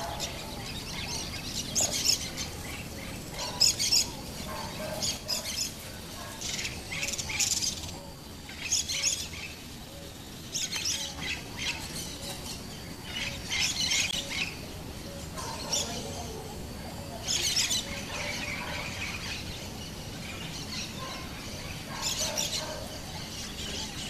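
Birds chirping and calling in short high bursts, a new burst every second or two.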